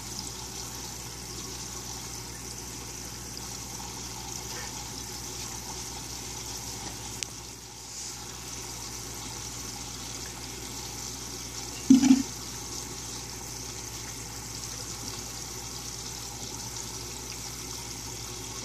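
Steady trickling water over a low steady hum, typical of an aquaponics system's circulating water and pump. A brief louder sound about twelve seconds in.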